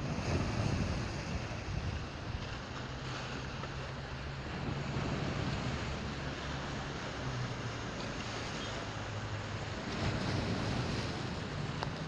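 Wind buffeting the microphone over the rush of the sea, with a steady low hum underneath. The rush swells louder near the start and again about ten seconds in.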